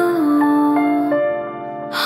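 Music from a Hindi pop song with a female singer: a long held note lasts until about a second in, then the accompaniment carries on more softly.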